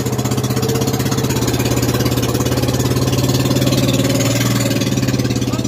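Outrigger boat's inboard engine running steadily under way, a loud, fast, even chugging.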